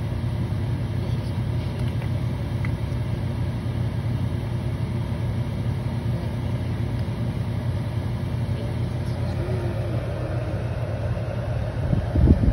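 Room air cooler's fan running with a steady low hum and rumble. A couple of low thumps come near the end.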